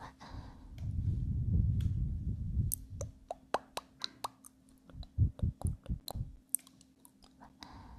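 Close-miked ASMR trigger sounds. A low, soft brushing rumble comes first, then a quick run of small sharp clicks and pops, a few short soft thumps, and a few more clicks near the end.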